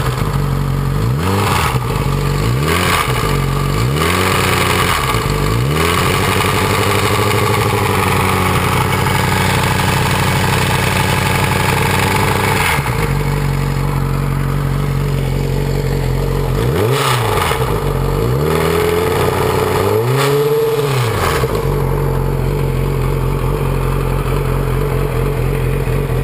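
2006 Yamaha R6 inline-four engine idling and being revved: several quick throttle blips, one rev held for about seven seconds, then idle with two more blips. A clanking comes from inside the engine and is louder at higher revs. This is the cam chain slapping, because the cam chain tensioner's spring is not seating properly and so does not give the chain its proper tension.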